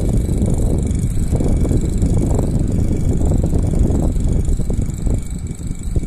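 Small antique electric desk fan running at speed, its blade's air blowing straight onto the microphone as a loud, uneven low rumble over the steady sound of the motor.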